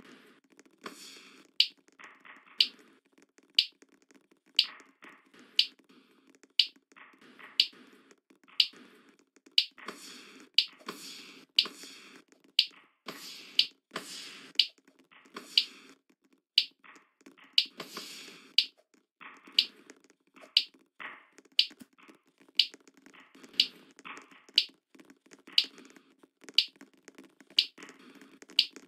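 Sharp snapping clicks at an even pace of about one a second, over faint low background noise.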